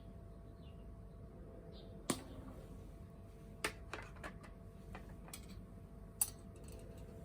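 Small wood fire crackling in a mini fire stand: a handful of sharp pops, irregularly spaced, over a faint steady background.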